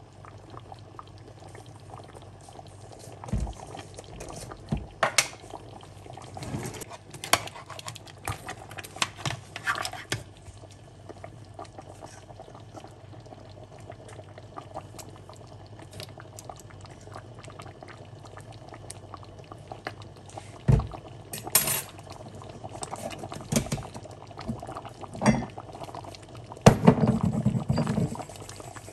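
Pot of goat and tomato stew bubbling on the stove, with a metal spoon knocking and scraping against the pot now and then, most busily near the end.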